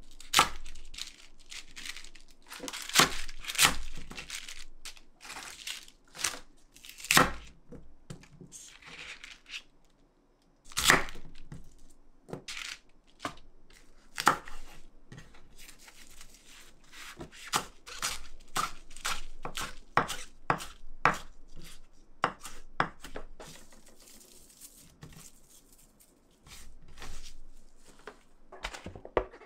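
Kitchen knife slicing crisp napa cabbage and then perilla leaves on a wooden cutting board: irregular crunching cuts and knife taps on the board, with leaves rustling as they are handled.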